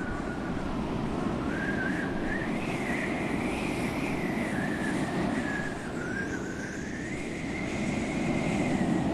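Seaside ambience: a steady rush of wind and surf, with a thin high tone wavering up and down above it. The rush dips about six seconds in and swells again near the end.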